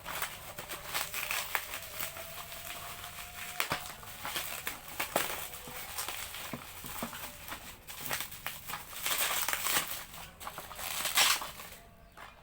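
Plastic and cardboard lure packaging crinkling and crackling, with irregular clicks, as it is handled and opened. It stops near the end.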